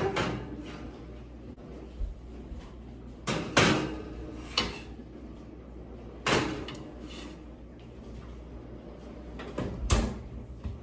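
Cake pans set down on the wire racks of an open oven, a few separate clinks and knocks, then the oven door of a Samsung range swung shut with a heavier thud near the end.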